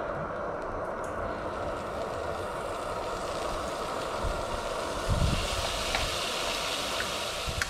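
Steady hiss of a portable gas stove's burner under a frying pan; from about halfway, thin slices of raw beef start sizzling in the hot pan and the hiss turns brighter. A few light clicks of metal tongs against the pan near the end.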